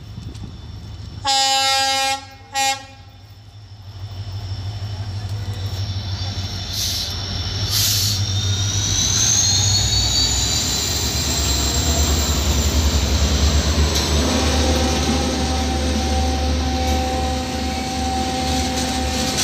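WDP 4D diesel locomotive sounds its horn, one long blast and a short toot. Its 16-cylinder two-stroke engine then grows louder as it accelerates past, with a rising turbocharger whine. The passing coaches follow with wheel-on-rail noise and a steady squeal.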